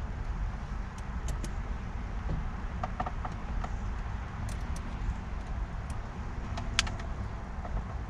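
Light metallic clicks and clinks of a hand tool and bolts against an aftermarket steering-wheel quick-release hub as it is bolted up, over a steady low rumble. The sharpest click comes near the end.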